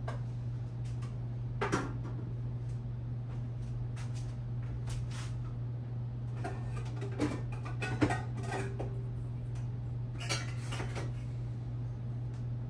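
Kitchen clatter of pots, pans and utensils: scattered knocks and clinks, with a busier stretch of them in the second half and the sharpest knock about eight seconds in, over a steady low hum.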